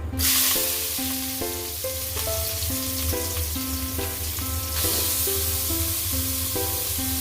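Hot cooking oil in a pan bursts into sizzling as ingredients go in to sauté, then keeps frying steadily, growing a little louder about five seconds in.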